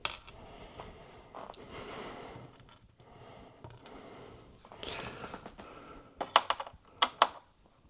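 Screwdriver working a small screw out of the iMac's heatsink, with light scraping and sharp little clicks of tool and metal parts; a quick run of clicks comes near the end.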